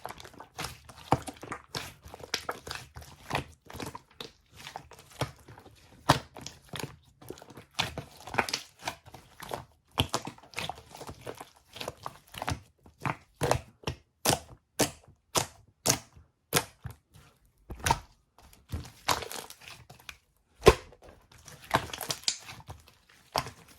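Green tea slime being squished, pressed and stretched by hand, making a fast, irregular stream of wet clicks and air-bubble pops, with a few louder pops in the second half.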